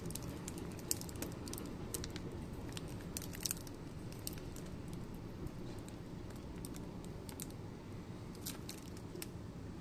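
Thin clear plastic bag crinkling faintly as fingers work it around a lens, in scattered small crackles with a few clusters, over a low steady room hum.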